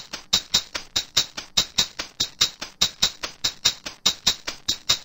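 Opening of an animated video's background music: a steady beat of short, light percussive taps, about four a second.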